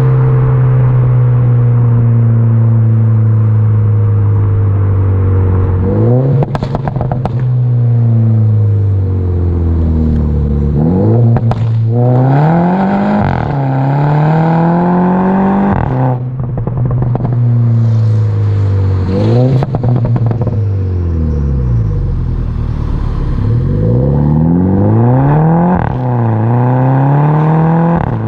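A Mini Cooper S F56's 2.0 turbo four-cylinder running through a straight-pipe exhaust while driving. Revs climb and drop sharply several times as it accelerates and shifts gear, with brief pops and crackles from the exhaust at the shifts and on lift-off.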